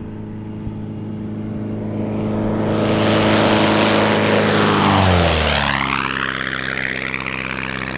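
Wittman Tailwind W10 light plane with a 180 hp engine making a fast low pass: the engine-and-propeller drone builds, drops sharply in pitch as the plane goes by about five seconds in, then eases away.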